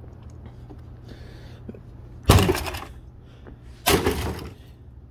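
Two heavy blows on an old plastic coffee maker, about a second and a half apart. Each is a sharp crack followed by a short clatter of breaking and scattering plastic pieces.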